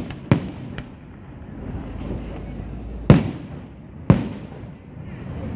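Aerial firework shells bursting in sharp bangs: one about a third of a second in, a smaller crack soon after, then two louder reports about three and four seconds in, each trailing off in an echoing rumble.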